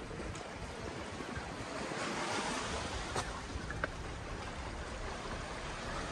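Steady rushing water noise, either surf or rain, that swells about two seconds in and again near the end, with a few faint clicks.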